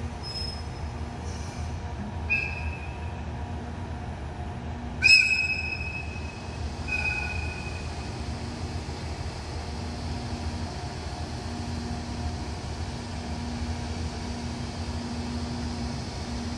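Locomotive horn sounded in several short high blasts, the loudest about five seconds in and lasting about a second and a half, over a steady low machine hum.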